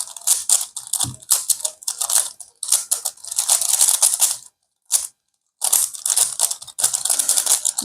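Plastic non-magnetic 3x3 Rubik's cube being turned fast during a speedsolve: a rapid run of layer clicks and rattles, with a pause of about a second in the middle.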